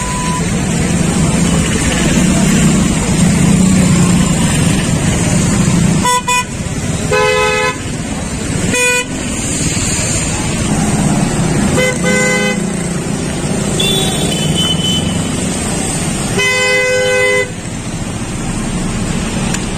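Road traffic in heavy rain: a steady hiss of rain and tyres on the wet road over engine rumble, with vehicle horns honking about five times, the last held nearly a second.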